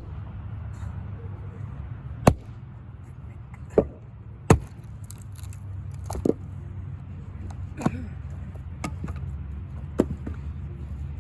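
Axe splitting firewood: a run of about seven sharp, irregular strikes, one every second or two, some with a short ring after them, over a steady low rumble.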